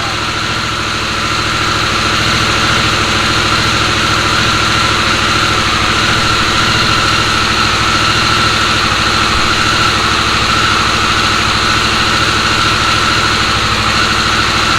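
Harley-Davidson Sportster S's 1250 cc V-twin idling steadily, with a steady high whine over the engine note.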